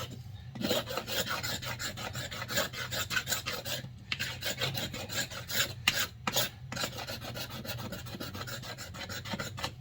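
A knife blade scraping sticky duct-tape residue off a wooden axe handle in quick, repeated strokes, with short breaks about half a second in, around four seconds in and around six seconds in.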